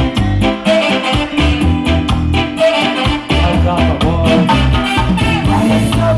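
Reggae music with a steady beat, bass and keyboard.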